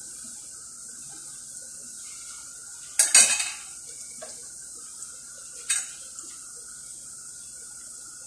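Bitso (twisted dough sticks) deep-frying in oil with a steady sizzle. A loud metal clatter about three seconds in and a shorter one a little before six seconds: metal knocking against the frying pan.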